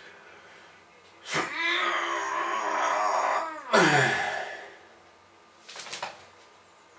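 A man's long, wavering strained cry of about two and a half seconds, followed at once by a second loud cry that falls steeply in pitch, echoing in a small tiled room.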